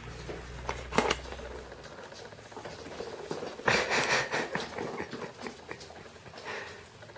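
Kittens' paws pattering, skittering and scrabbling on a laminate wood floor as they play and chase, with a louder scuffle about halfway through. A low hum from the camera lens's vibration reduction runs under the first two seconds.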